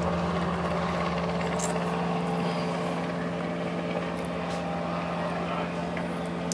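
Steady drone of light aircraft: a small helicopter hovering and the Cessna 152's four-cylinder engine at take-off power, heard through window glass.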